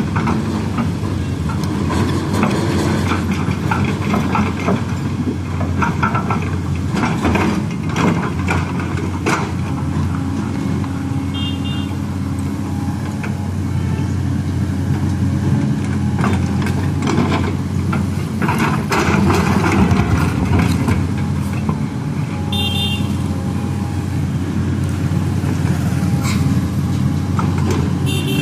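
Tracked hydraulic excavator's diesel engine running steadily under digging load, with irregular scraping and knocking from the steel bucket cutting into and dumping soil.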